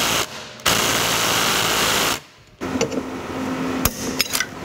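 Cordless impact driver running on a bolt at a minibike's belt clutch in two bursts: first a loud rattling run of about a second and a half, then after a brief pause a smoother, steadier whirr of about a second. A few sharp metal clinks of hand tools follow near the end.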